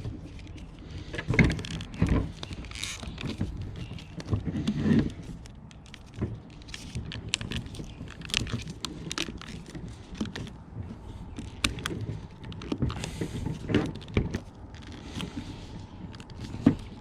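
Steering-wheel trim pieces and parts being handled and fitted by hand: irregular clicks, taps and knocks, with the loudest knocks about a second and a half in and just before the end.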